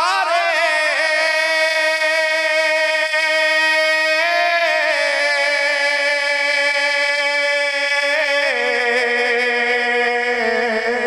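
A man singing a devotional rubai (quatrain) solo, without instruments, in long held notes with a wavering ornamented line that steps down in pitch a few times.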